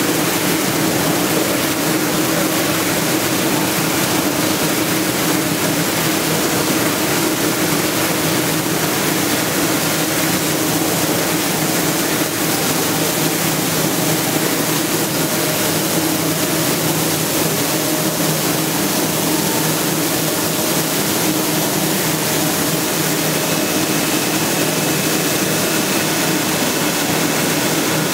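Spiral screw ginger washer running steadily: an even motor and drive hum under the hiss of water sprays pouring onto ginger in the trough.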